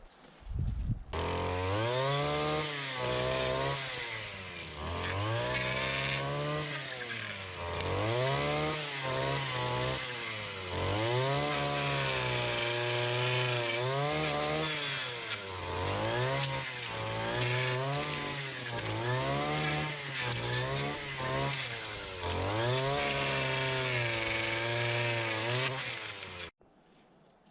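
A petrol-engined saw runs at high revs while cutting wood. Its pitch sags under load and climbs back again and again, roughly every two seconds, then stops abruptly near the end.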